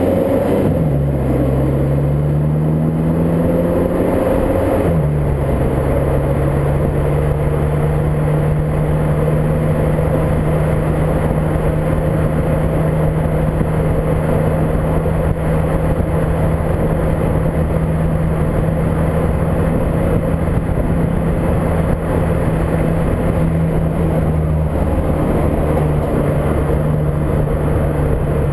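A VW Mk5 GTI's 2.0T turbo four-cylinder engine pulls with rising revs through a gear change over the first five seconds, then holds steady revs at cruise. Heavy wind and road noise run underneath.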